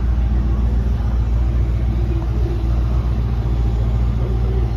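The 350 small-block Chevy V8 crate engine of a restored 1958 Chevrolet 3100 pickup running steadily through custom headers and exhaust, a deep, even rumble.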